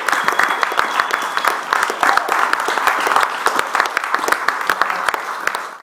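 A roomful of people applauding, with dense, irregular clapping and a few voices mixed in. The sound cuts off abruptly at the end.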